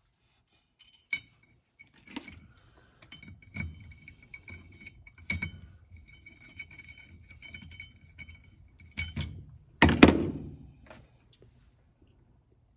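Metal clutch parts and hand tools clinking and knocking during hands-on clutch assembly: scattered light clicks, then one louder clank with a short ring about ten seconds in.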